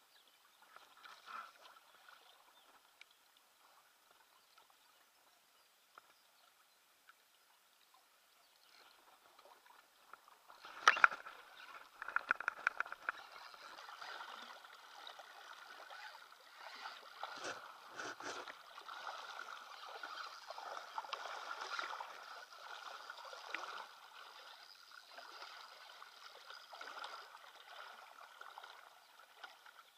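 Water splashing and sloshing around a pontoon float tube as a hooked catfish is fought on a spinning rod. After a quiet start there is one sharp knock about eleven seconds in, then a quick run of clicks, and continuous splashing from then on.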